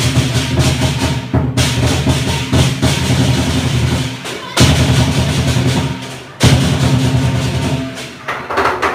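Lion dance percussion: a large drum beaten in fast, continuous rolls with clashing cymbals, loud and driving. The playing breaks off and starts again abruptly three times.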